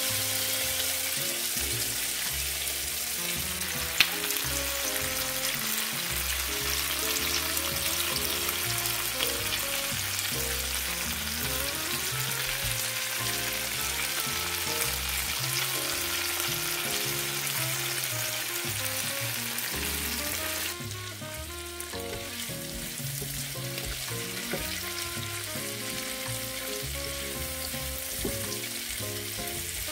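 Potatoes and bell peppers sautéing in butter and oil in a skillet, with a steady sizzle and a single sharp click about four seconds in. Background music plays underneath. The sizzle turns quieter about twenty seconds in.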